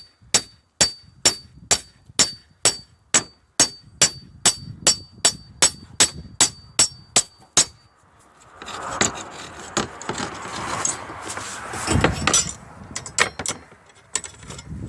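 Hammer blows on a slate ripper's handle about twice a second, each with a short metallic ring, driving the bar's hook to cut the nail holding a broken roof slate. About eight seconds in the blows stop and give way to scraping and rubbing with scattered clicks, metal and slate grinding as the bar is worked loose.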